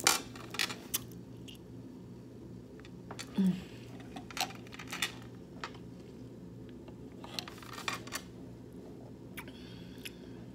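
Close-up eating sounds: chewing with scattered sharp clicks and taps, and a short low sound about three and a half seconds in.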